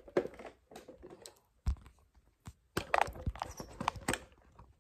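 Handling noise from a phone being picked up and repositioned: a run of bumps, rustles and clicks on the microphone, with a heavier thump a little under two seconds in and a dense cluster of knocks in the second half.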